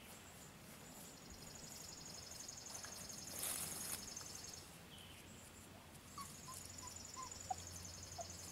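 Faint high-pitched pulsing insect trill, in two stretches broken by a brief rustle about three and a half seconds in, with a few faint short chirps near the end.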